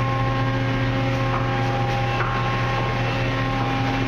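Automatic car-wash machinery running: a steady mechanical hum with a low drone and several steady higher tones over a constant wash of noise.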